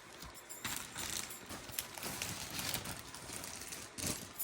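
Irregular rustling and soft handling noises with a few light clicks, as items such as a shawl and a leather bag are moved and handled.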